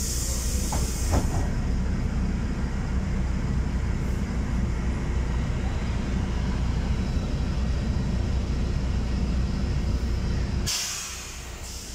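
Cabin noise inside a LiAZ-6213.22 articulated city bus under way: steady low engine and road rumble. Near the end the rumble drops off sharply and a short burst of compressed-air hiss follows, as the bus brakes to a stop.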